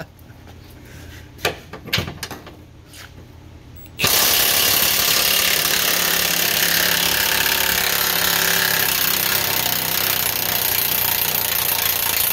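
A few light clicks and knocks, then about four seconds in a loud, steady mechanical rattling noise from shop machinery cuts in suddenly and keeps going.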